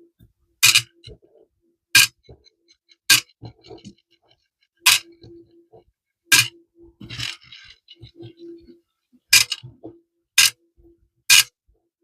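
Small metal PC screws being dropped one at a time into a sorting container: about eight sharp clinks, roughly a second apart, some with a short metallic ring. A brief rustle of rummaging through the pile about seven seconds in.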